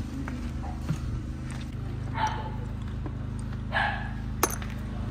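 A dog barking twice, about two seconds in and again near four seconds, over a steady low hum. A sharp click follows the second bark.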